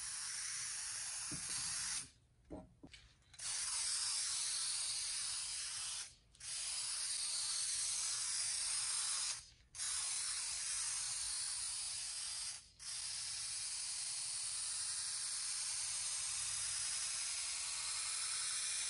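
Aerosol can of fast-drying spray polyurethane spraying in steady hissing passes: five long sprays broken by short pauses as the nozzle is released between passes.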